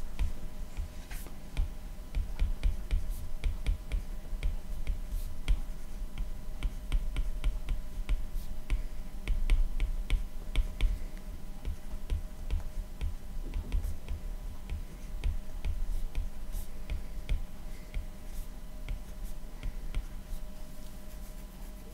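Stylus writing on a tablet's glass screen: a quick, irregular run of light taps and clicks with dull knocks underneath as each letter is written.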